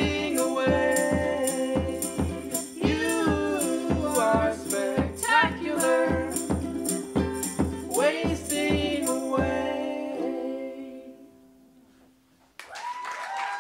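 Ukulele strummed with a woman singing over a steady percussion beat of about three strokes a second. The song ends about ten seconds in and rings away, and applause with a cheer breaks out near the end.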